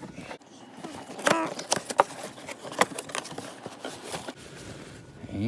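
Cardboard box being opened by hand and the part inside pulled from its wrapping: rustling and scraping of cardboard and packing material, with a few sharp snaps and clicks.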